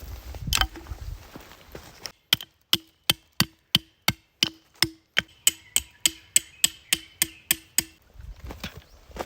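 A rapid, regular run of sharp knocks, about three a second and seventeen in all, each with a brief ring. It starts about two seconds in and stops near the eighth second.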